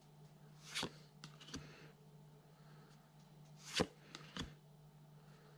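Pokémon trading cards being slid and flicked one at a time through the hands: a handful of short swishes and snaps, the loudest a little under four seconds in.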